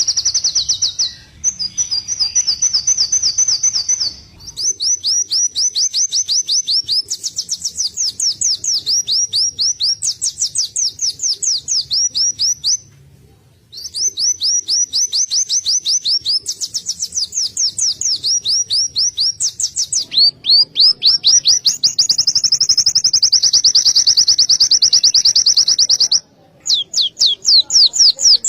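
A small songbird singing long, fast trills of sharp, high notes at about eight notes a second, the rapid-fire 'rol tembak' delivery bird keepers prize, broken by a couple of brief pauses.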